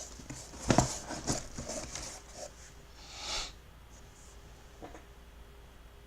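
Boxes being handled on a table: a sharp knock, a few light clicks, then a short rustling slide and a faint tick.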